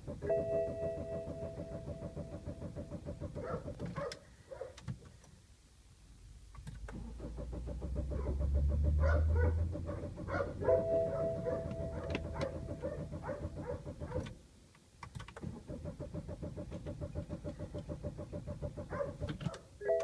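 BMW E90 3 Series failing to start: rapid, even chattering from the starting circuit, twice overlaid by a steady buzzing tone. A low sound swells and fades around the middle, likely an attempt to crank. It is the sign of the starting fault that the uploader traces to the charging relay.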